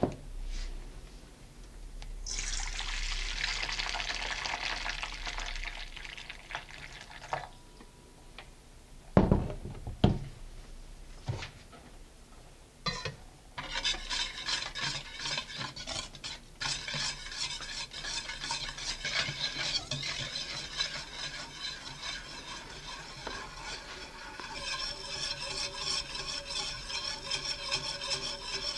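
Balloon whisk stirring egg whites and sugar for Swiss meringue in a stainless steel bowl, its wires clicking rapidly and steadily against the metal, starting about a third of the way in. Before that comes a few seconds of hissing as granulated sugar pours into the empty bowl, and two loud sharp knocks on the bowl around the middle.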